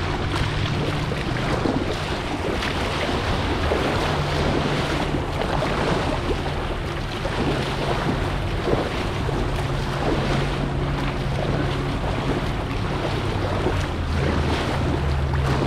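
Shallow river riffle rushing and splashing steadily around a kayak, with wind buffeting the microphone.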